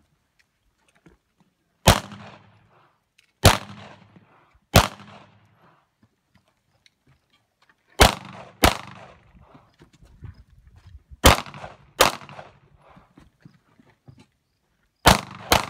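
Pistol shots, nine in all, each followed by a short echo. The first three come singly, a second or more apart. Then come three quick pairs, each pair about half a second apart.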